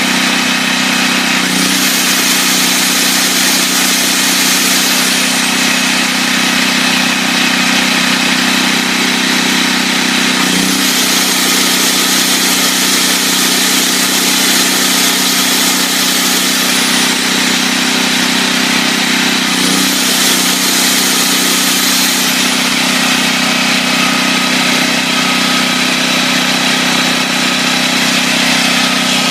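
Generac XG8000E portable generator's 410cc OHV engine running at a steady speed. Three times a high hiss comes in for a few seconds, each time with a brief wobble in the engine note as it starts.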